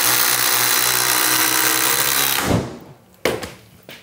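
Two cordless impact drivers, a Makita 40V XGT and a DeWalt 20V PowerStack, running together at full speed, hammering structural lag screws down into lumber. Both stop about two and a half seconds in, and a short knock follows.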